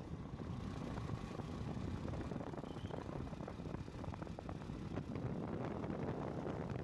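Motorcycle riding along at a steady pace, its engine running under a rush of wind on the microphone.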